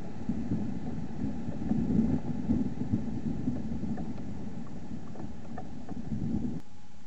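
Low, uneven rumbling noise with a few faint ticks, picked up by a Spypoint Link-4G trail camera's microphone at night; it cuts off suddenly near the end as the camera's recording stops.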